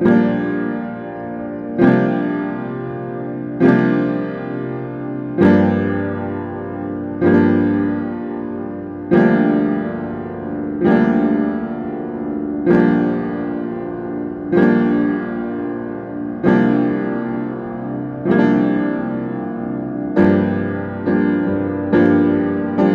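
Piano playing slow chords, one struck about every two seconds and left to ring and fade, with the chords coming a little quicker near the end.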